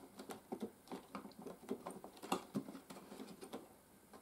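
Small irregular plastic clicks and scrapes of the grilled rear filter cover of an Electrolux Z2020 cylinder vacuum being handled and worked loose by fingers, with one sharper click about two seconds in.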